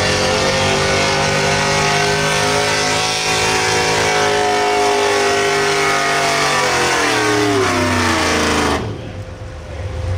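Pickup truck's small-block gas V8 running hard at high revs while pulling a weight sled. The revs sag gradually as the engine bogs down under the load, then the sound cuts off abruptly near the end.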